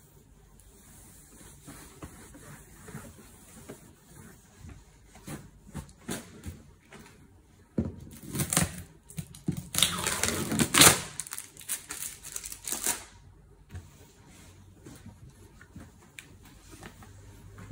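A cloth rubbed and wiped over a cardboard box, with light taps and handling clicks. About eight seconds in there is about five seconds of louder, scratchy scrubbing before it quietens again.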